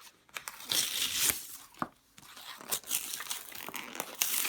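Packaging crinkling and rustling as it is handled: irregular bursts of crackly noise, with a short pause about two seconds in.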